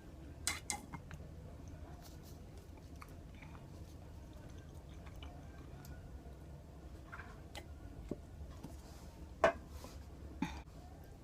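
A few short clinks and knocks of tableware while eating, the loudest about nine and a half seconds in, over a low steady room hum.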